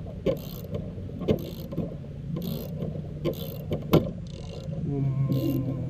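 Hand tools working a jaw-type gear puller on a small engine's clutch: short bursts of ratchet-wrench clicking and sharp metal knocks, several seconds apart, as the puller is tightened to draw the clutch off the crankshaft. A steady low hum runs underneath.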